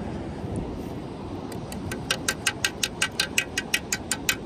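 A quick, even run of sharp clicks, about six a second, starting about one and a half seconds in, over a steady low background hiss.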